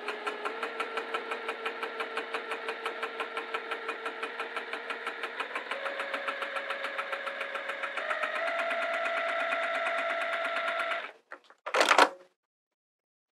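Juki straight-stitch sewing machine topstitching a zipper: motor hum with a steady rapid clatter of stitches. The hum steps up in pitch as the machine speeds up about six and eight seconds in, and it stops about eleven seconds in. A short, loud noisy burst follows just after.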